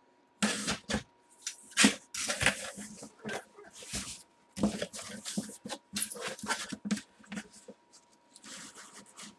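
A cardboard shipping box being torn open by hand: irregular ripping, crackling and scraping of cardboard as the flaps are pulled back and an inner box is slid out, with a sharp snap about two seconds in.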